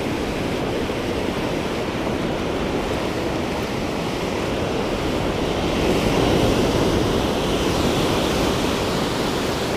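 Ocean surf breaking and washing up a sandy beach: a steady rush that grows a little louder about six seconds in.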